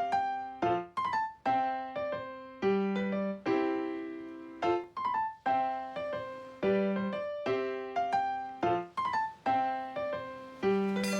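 Background music: a light piano or electric-piano tune, plucked-sounding notes repeating in a regular pattern.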